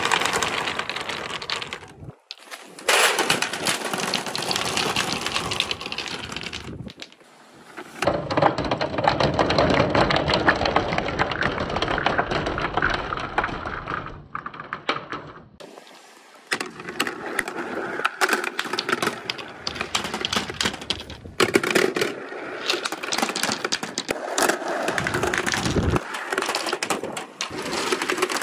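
Many balls rolling and clattering down long chutes, knocking against each other and the chute walls in a dense rattle. Near the end, billiard balls clack together as they pile up at the bottom. The rattle stops abruptly and restarts a few times.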